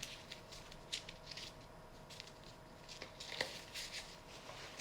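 Quiet room tone with a faint steady hum and scattered soft clicks and rustles, like light handling noises.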